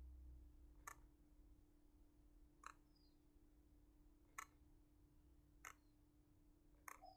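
Five single, faint computer mouse clicks, a second or two apart, over a low steady hum.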